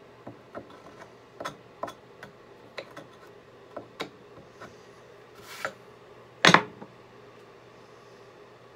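Hand brace and bit boring a hole through a poplar board: irregular light clicks and ticks as the brace is turned, with a louder short burst of noise about six and a half seconds in.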